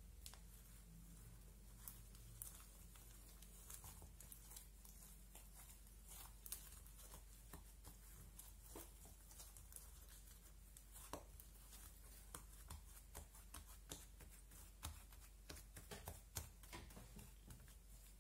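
Slime mixed with ash being stretched, folded and kneaded by hand, giving faint, irregular little clicks and pops as it sticks and pulls apart.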